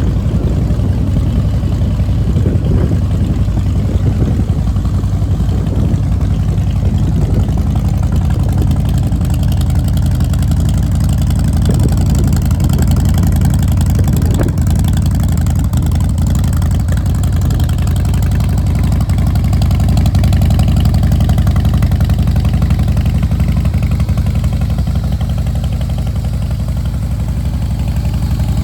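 Harley-Davidson Softail Deuce's Twin Cam 88 V-twin engine idling steadily through a Vance & Hines aftermarket exhaust.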